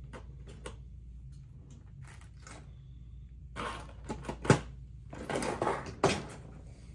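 Small steel springs and gun parts handled on a workbench: scattered light clicks and rustles, with a sharp click about two-thirds of the way through and another near the end, over a low steady hum.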